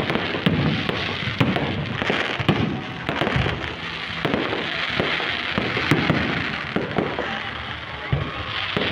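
Fireworks going off in a rapid, continuous barrage: many sharp bangs a second over crackling.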